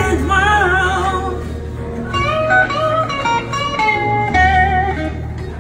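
Stratocaster-style electric guitar played through a small portable amplifier: a slow, bluesy lead line of bent, wavering notes over low held bass notes that change twice.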